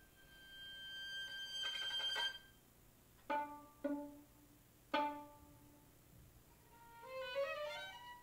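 Violin with electronic sounds: a high held note swells for about two seconds, then three plucked notes ring and fade, and near the end several tones glide upward together.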